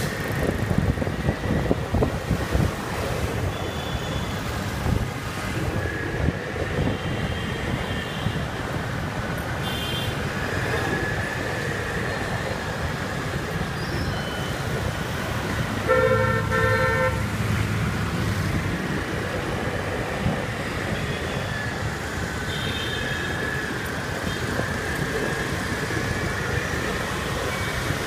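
Busy street traffic: a steady rumble of motorbike engines and road noise, with a vehicle horn honking once for about a second midway and fainter, higher horn beeps now and then.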